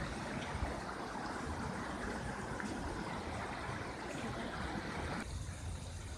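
Steady rush of running spring water, cutting off abruptly about five seconds in, over a constant low rumble.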